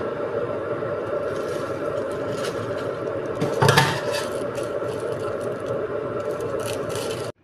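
A steady droning hum runs throughout, with a heavy thud about three and a half seconds in as a bag of rice is set down on the kitchen counter, and light crinkling of the plastic bag.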